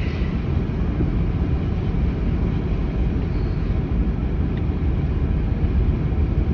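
Steady low rumble of road and engine noise inside the cabin of a moving Honda Pilot SUV.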